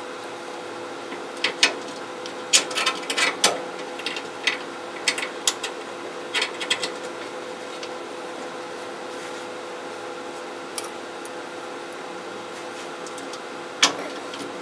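Scattered light metallic clicks and taps as a steel parking brake cable is handled and fed through a bolted steel bracket on a truck frame rail, over a steady background hum. The clicks cluster in the first half, with one sharper click near the end.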